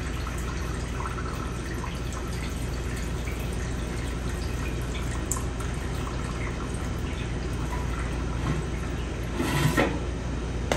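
Hot cooking oil dripping from a lifted filter-screen frame back into the pool of oil in a filtration machine's stainless steel tank, over a steady background hum. A brief metal handling clatter near the end.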